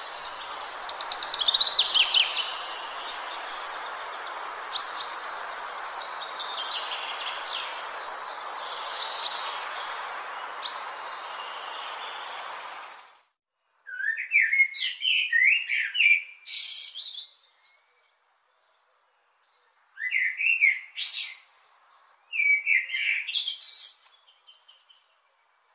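Songbirds chirping and singing. For the first half the chirps sit over a steady background hiss that cuts off suddenly. After that come separate clear song phrases of several quick notes each, with silent gaps between them.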